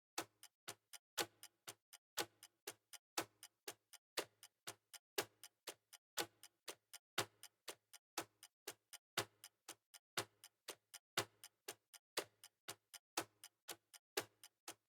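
Clock ticking steadily, about four ticks a second, with a louder tick once every second.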